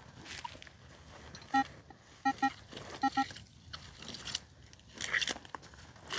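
Metal detector giving short electronic beeps as the coil is swept over the ground: one beep, then two quick double beeps. Crunching of dry ground or brush comes in between, loudest near the end.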